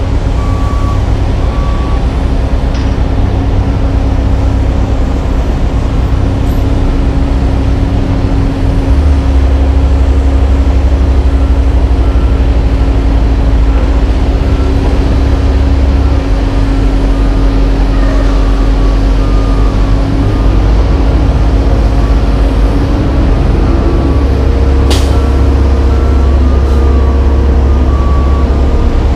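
Heavy diesel dump truck engines running steadily, with a backup alarm beeping on and off throughout. A brief sharp sound near the end.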